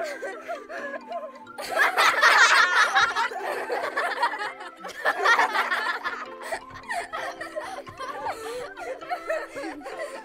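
Background music with laughter over it, the laughter loudest about two seconds in and again around five seconds.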